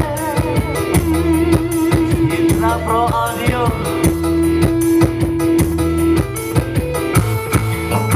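Live band music: a singing voice and held melody notes over a steady bass line and a dense, even percussion beat.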